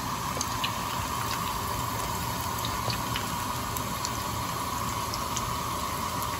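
Breaded chicken croquettes deep-frying in hot oil in a frying pan: a steady bubbling sizzle with scattered small pops.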